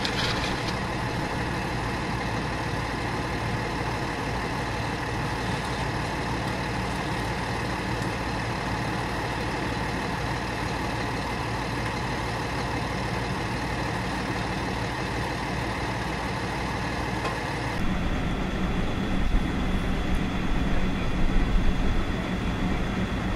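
Heavy diesel truck engines idling steadily. About 18 seconds in, the sound switches to a louder, deeper idle with a steady low hum, from a fire truck's engine running close by.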